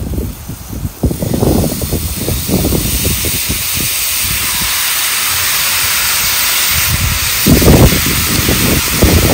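Marinated chicken fajita strips, onions and peppers sizzling as they are poured onto a hot Blackstone flat-top griddle. The sizzle grows louder as more food lands, with irregular low rumbles underneath.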